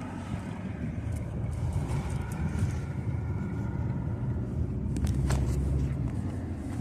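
Car cabin noise while driving: steady low engine and road rumble, with a couple of short clicks about five seconds in.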